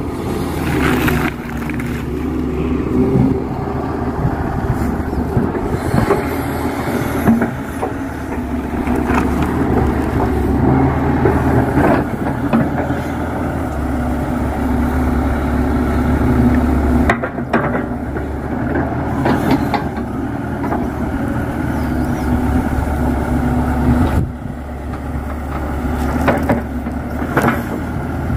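KATO excavator engine running steadily while the bucket digs in clay, with a few sharp knocks and clanks of the bucket against clods.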